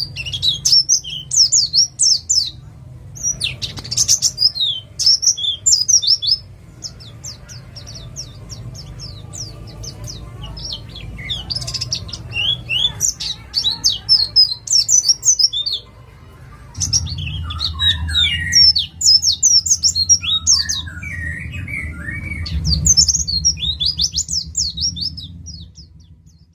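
White-eye (pleci, East Java type) singing its fast 'nembak' song: repeated bursts of rapid, high, steeply sweeping notes, a kind of song used to lure other white-eyes into singing. Lower warbled notes join in for a few seconds past the middle, over a steady low hum.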